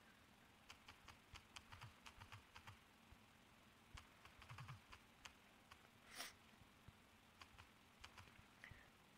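Faint taps of typing on a phone's touchscreen keyboard, in quick runs of clicks with short pauses between. A brief louder hiss comes about six seconds in.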